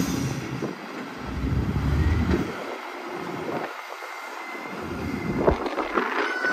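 Wheel loader's diesel engine running as it drives across a gravel yard, a low rumble that swells and fades, with a short high squeal near the end.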